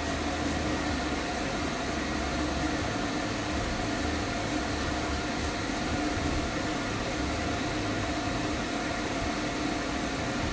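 Pet-grooming stand dryer running steadily: an even rush of blown air over a constant motor hum.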